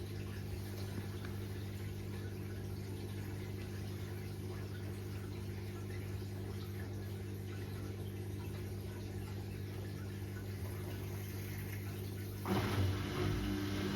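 Washing machine draining before its spin, its drain pump running with a steady hum and water rushing through. About twelve seconds in the sound suddenly gets louder and fuller.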